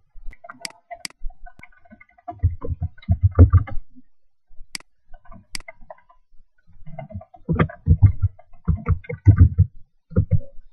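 Typing on an ASUS K54 laptop keyboard, heard as two quick runs of dull key thumps, with a few separate sharp clicks in between as fields are clicked.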